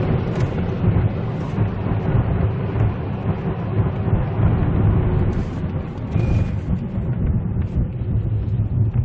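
Mercedes-Benz SLK (2005) heard from inside the cabin while driving: a steady low rumble of engine and road noise.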